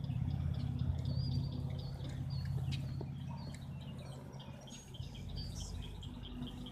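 Birds chirping and calling, with a rapid run of short high notes in the second half, over a steady low rumble that is loudest in the first few seconds.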